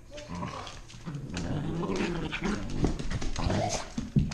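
Two dogs, a pitbull puppy and a toy fox terrier, growling as they tussle with each other. The growling starts about a second in, with short scuffling sounds among it.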